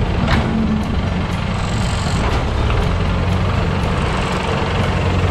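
1963 Ford 2000 tractor engine running steadily as the tractor drives forward pushing snow with its front blade, with a brief faint high squeal about two seconds in.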